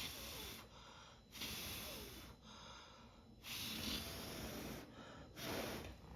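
A person breathing close to the microphone: four slow, breathy exhalations with short gaps between them.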